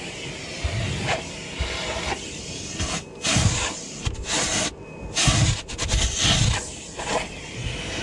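Gas-station vacuum hose sucking over car carpet and trim. Its rushing air note swells and fades as the nozzle moves, and nearly cuts out briefly about three and five seconds in, with a few low thuds of the nozzle against the panels.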